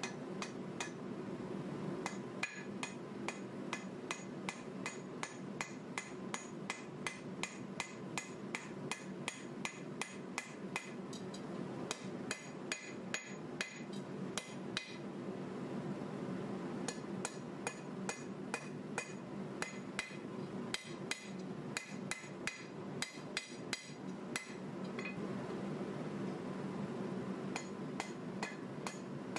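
Hand hammer striking red-hot 1095 steel bar on an anvil, forging a knife blade: runs of sharp blows about two a second, broken by a few short pauses, over a steady low hum.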